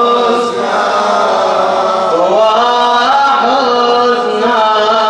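A man chanting a Shia mourning lament (latmiya) in Arabic, drawing out long sliding, held notes between lines.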